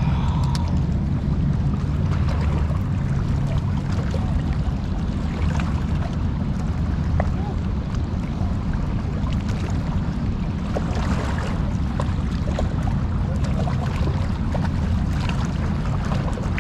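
Steady rush of turbulent river water below a dam, with wind buffeting the microphone as a continuous low rumble.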